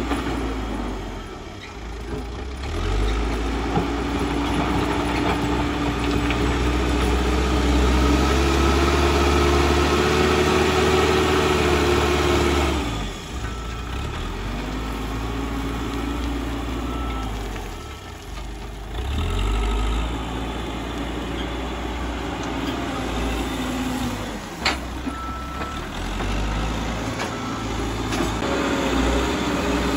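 Caterpillar 434E backhoe loader's diesel engine revving and easing off as the machine drives and pushes soil with its front bucket, its pitch rising and falling with the throttle. It is loudest about a third of the way in and eases off twice, with a single sharp knock a few seconds before the end.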